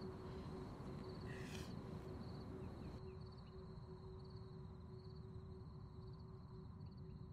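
Faint night-time outdoor ambience: a steady low hum and hiss, with an insect trilling high in even pulses about twice a second. A brief soft hiss comes about a second and a half in, and the upper hiss thins out about three seconds in.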